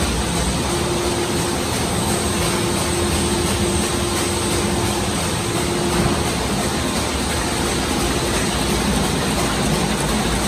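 Müller Martini Tempo saddle stitcher running, a loud, steady machine noise with a faint steady hum through most of it.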